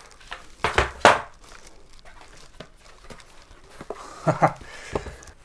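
Unboxing handling noise from a cardboard presentation box and its foam insert: sharp knocks and rustles about a second in, quieter handling, then more knocks and scraping near the end.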